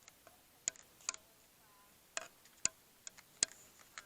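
Irregular sharp clicks, about ten in four seconds, several followed by a brief ring.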